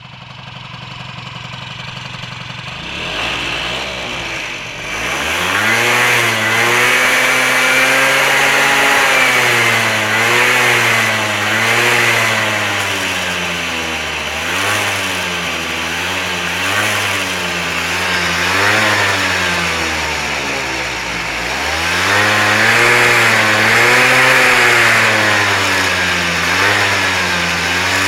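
Peugeot Speedfight 2 scooter's two-stroke engine, running low at first, then revved up and down over and over from about five seconds in. The scooter is making a noise that the owner calls crackling ("knistert").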